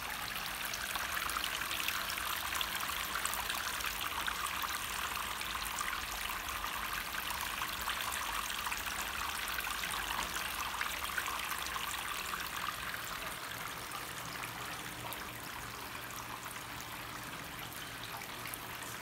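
Small tiered tabletop decorative fountain: water trickling and splashing steadily from its bowls into the basin below. Louder for most of the stretch, then a little fainter near the end.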